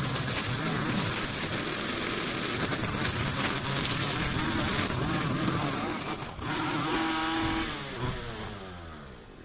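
An engine running loudly, then sinking in pitch and dying away over the last two or three seconds.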